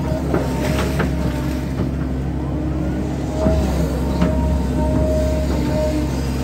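Volvo hydraulic excavator working a ditch: the steady drone of its diesel engine under load, with a hydraulic whine that comes and goes and rises in pitch once in the middle. A few sharp knocks from the bucket and boom sound about half a second and a second in, and again near three and a half and four seconds.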